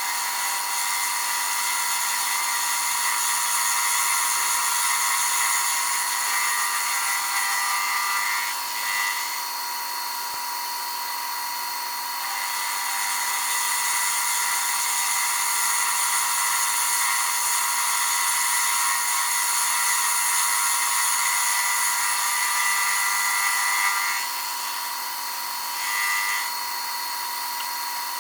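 Atlas 10-D lathe running with a milling attachment, a half-inch cutter milling a flat onto a bolt head: a steady motor whine with a hissing cut over it. The cut eases off about nine seconds in and again near the end, then picks up again.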